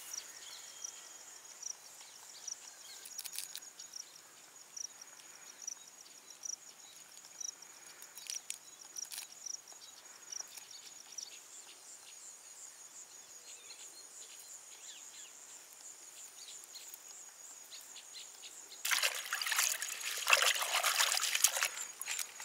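Insects chirring steadily with a thin high tone and a few faint clicks. About nineteen seconds in, water splashing and sloshing as fresh spinach leaves are swished and rubbed clean by hand in a bucket of water.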